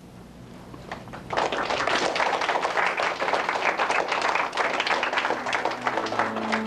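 A room of schoolchildren applauding, a dense patter of many hands clapping that starts about a second in.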